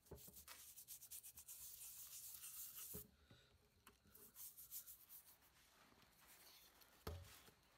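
A toothbrush scrubbing the brass back plate of an old PA horn driver unit in rapid strokes that stop abruptly about three seconds in. A few lighter strokes follow, and a short knock comes near the end.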